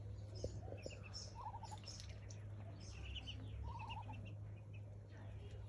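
Ducklings peeping in many short, high chirps, with twice a quick run of lower calls from an adult duck. A steady low hum lies underneath.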